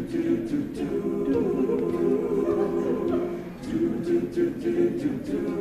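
Male a cappella group singing wordless sustained chords, with short sharp clicks over them. The chords dip briefly a little past halfway, then return.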